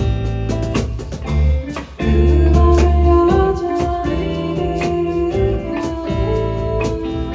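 Acoustic band playing live: strummed guitar with a bass line and a singing voice carrying a held melody from about two seconds in.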